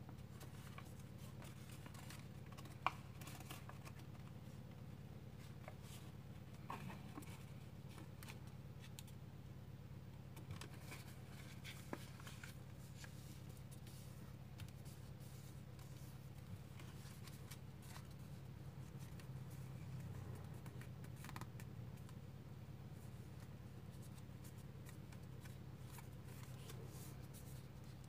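Sheet of origami paper rustling and crinkling as fingers fold and press down creases, with scattered soft clicks and one sharper click about three seconds in, over a faint steady low hum.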